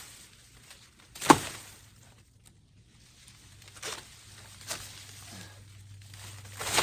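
Corn plants being pulled and handled: leaves rustling, with one sharp snap about a second in and a few quieter cracks later.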